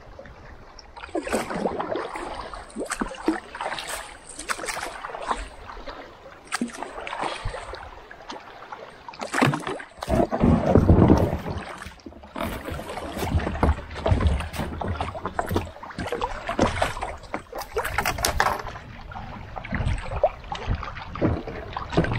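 Kayak paddle strokes splashing, roughly one a second, with water sloshing against the plastic hull. About ten seconds in there is a louder, deeper rush.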